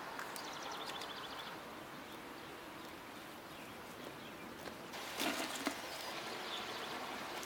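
Outdoor background with birds chirping, including a quick high trill near the start. About five seconds in, a short cluster of sharp clicks and crackles.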